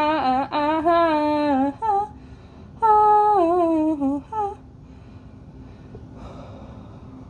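A woman humming a wordless tune in long held notes with sliding pitch, stopping about four and a half seconds in. Afterwards only faint room noise, with a brief soft rustle near the end.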